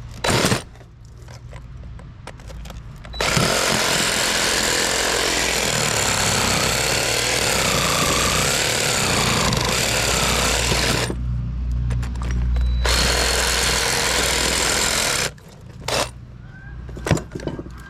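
Power saw cutting into the steel shell of an electric motor, running hard for about twelve seconds with a brief drop partway through. The blade is struggling and not cutting well.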